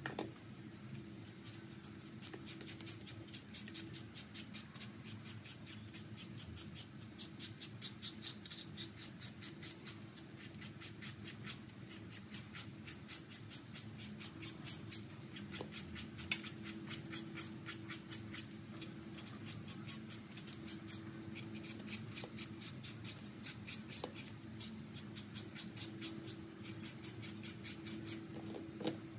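Hand-held julienne peeler scraping down a peeled green mango in rapid repeated strokes, cutting it into thin shreds that fall into a plastic colander.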